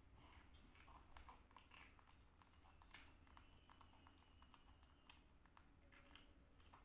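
Faint, irregular crunchy clicks of a baby monkey chewing crispy rice cakes.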